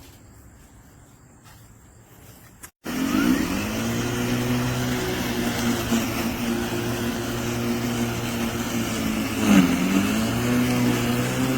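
LawnMaster CLM2413A 24V cordless lawn mower's electric motor spinning up after about three seconds of quiet, then running with a steady hum. Once, later on, its pitch briefly dips and recovers.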